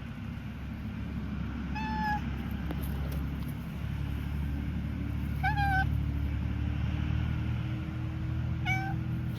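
A cat meowing three times, short calls a few seconds apart, over a steady low rumble.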